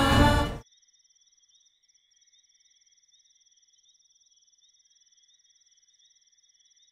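Background music cuts off about half a second in, leaving faint night ambience of crickets trilling steadily.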